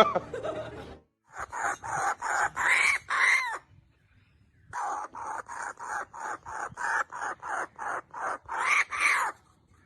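Two runs of short, rapid animal calls, about three or four a second, each run ending in a couple of louder, longer calls.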